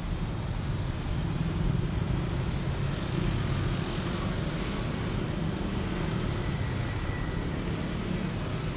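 Steady low rumble of distant engines, with no distinct events.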